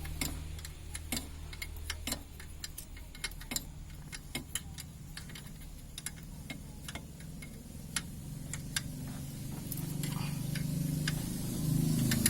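Isuzu Panther's 2.5-litre turbo diesel idling low and steady just after starting, its injector lines freshly bled of air, with scattered sharp ticks over it. The engine note swells somewhat near the end.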